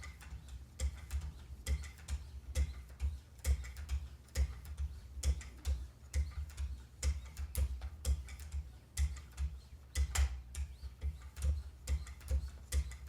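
Wicked Edge guided sharpener working an M4 steel blade with 9-micron pieces: a steady rhythm of ticks and light knocks as the paddles are stroked along the edge, the stronger ones roughly once a second with lighter ticks between.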